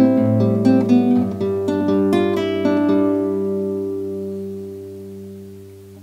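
Nylon-string classical guitar played fingerstyle: a few plucked notes, then a final chord left to ring and slowly die away. It is picked up by a Rode NTG-2 shotgun mic boosted through a cheap Fiio E3 headphone amplifier, and a faint hiss shows under the fading chord.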